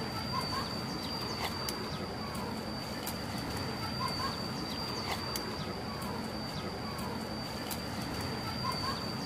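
A bird giving short calls every second or two, over a steady high-pitched whine and scattered faint ticks.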